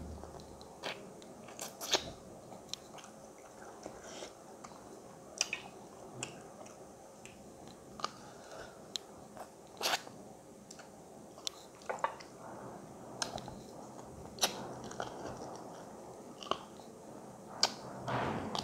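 Close-up chewing and biting of chicken wings and cornmeal dhido eaten by hand: wet mouth sounds with irregular sharp crunches and clicks, about one every second or so.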